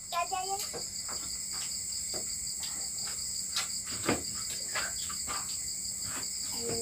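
Steady chorus of crickets and other night insects, a high continuous trill, with a few light clicks and knocks over it, the loudest about four seconds in.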